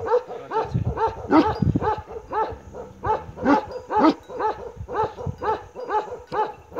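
Bakarwal dog barking in a fast, steady run of short barks, about three a second.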